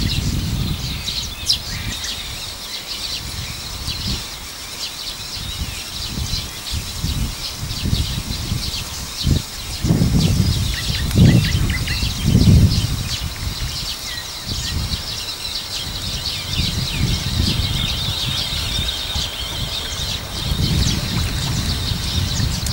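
Songbirds singing and chirping steadily over a low rumbling noise that swells and fades in gusts, loudest about halfway through.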